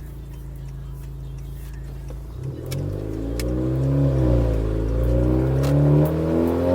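Turbocharged 2.0-litre four-cylinder engine of a 2018 Honda Accord 2.0T fitted with a catless downpipe, idling and then revved: the pitch climbs about two and a half seconds in, dips briefly, climbs again and holds high near the end.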